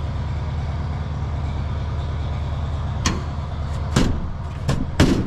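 Steady low machine hum, with four sharp knocks of thin aluminium sheet metal from about three seconds in, the last two loudest, as the wing-extension skin is handled and pushed into place on the wing.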